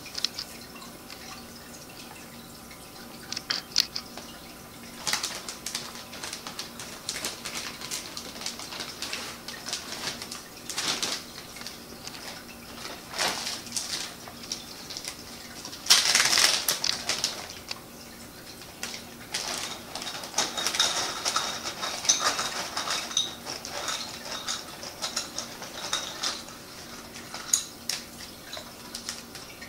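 Dry dyed rice and other dry filler rustling and pattering as it is scooped by hand with a small metal cup inside plastic zip-top bags, with crinkling plastic and small clicks, in irregular bursts, the busiest about halfway through. A steady low hum runs underneath.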